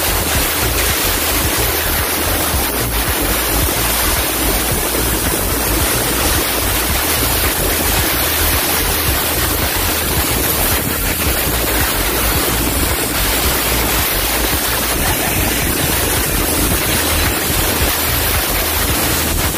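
Compressed-air blow gun on a coiled air hose blowing a steady, loud hiss over a car's engine bay, cleaning it off.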